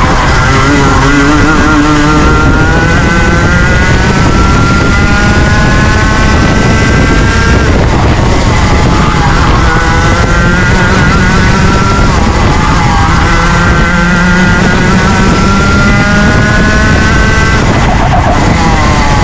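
Junior Rotax 125cc two-stroke kart engine at race pace. Its pitch climbs steadily for several seconds under acceleration and drops sharply about seven and a half seconds in as the throttle comes off, then climbs again and drops once more near the end.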